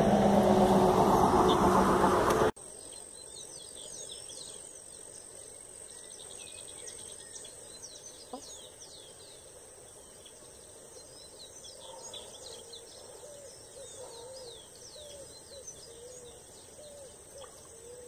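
A loud rushing noise cuts off abruptly about two and a half seconds in. After it, birds chirp and call repeatedly over a steady high-pitched whine, with lower repeated calls in the second half.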